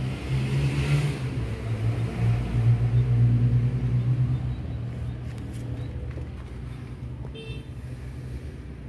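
Low, steady engine hum of a nearby motor vehicle, loudest about two to four seconds in, then fading away.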